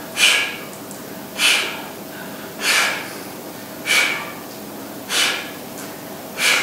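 A man breathing hard from exertion, with six short, hissing breaths evenly spaced about a second and a quarter apart.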